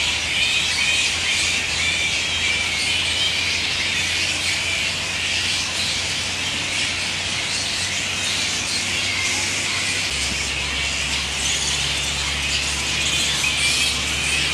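A roosting colony of grey-headed flying foxes squabbling: a constant, dense mass of high-pitched squeals and chatter from many animals at once.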